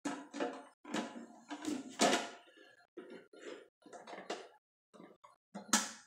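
Plastic knocking and clattering from the lid of a Ninja blender pitcher being handled and worked onto the plastic jar. It is a string of short, irregular knocks and rattles, the sharpest about two seconds in and another just before the end.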